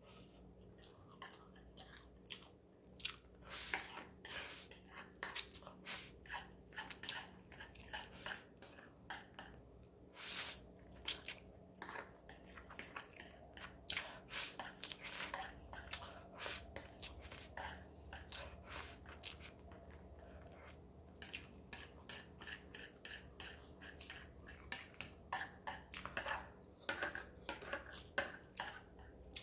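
A person eating spicy instant noodles with chopsticks close to the microphone: wet chewing and noodle slurps in many short, irregular smacks, with light chopstick taps and scrapes against the bowl.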